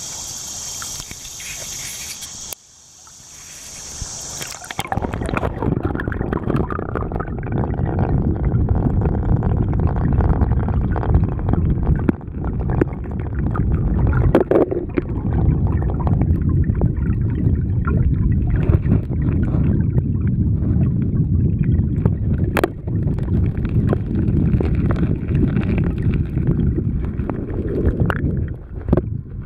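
Creek water: first a bright rushing heard in the air, then, once the camera goes under about two and a half seconds in, a steady low rumble of the current heard underwater, with a few faint clicks.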